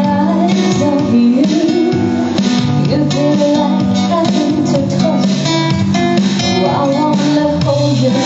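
Acoustic guitars playing an instrumental passage, strummed chords under a plucked melody line.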